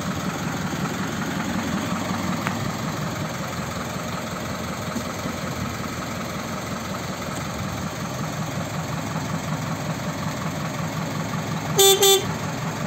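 Isuzu Turquoise midibus's diesel engine idling steadily, then two short toots of a vehicle horn near the end.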